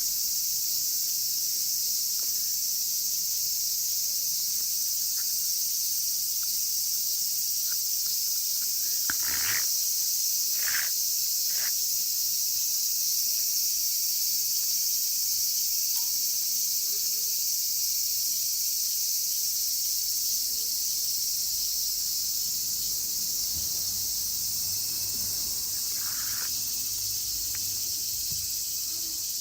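Loud, steady chorus of cicadas singing, high in pitch and unbroken. A few short knocks sound around nine to twelve seconds in and once more near the end.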